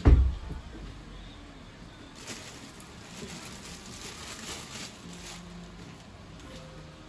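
Kitchen work noises: a heavy knock right at the start, then about three seconds of rushing noise while she works at the sink.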